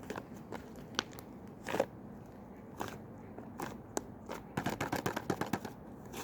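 Slime being pressed and poked by hand, giving scattered sticky clicks and pops, then a quick run of crackling about two-thirds of the way in.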